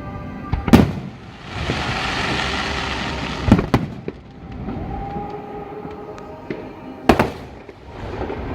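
Fireworks going off: sharp bangs about a second in, near four seconds (a quick double) and about seven seconds in, with a hissing crackle lasting about a second and a half after the first bang.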